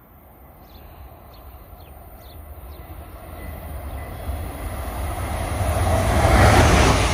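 Train approaching on the rails, its rumble and rail noise growing steadily louder.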